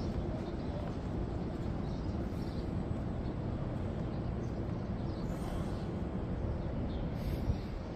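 Steady low outdoor rumble with a few faint, short bird chirps, mostly in the second half.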